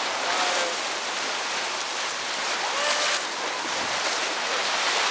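Whitewater rapids rushing steadily around an inflatable raft.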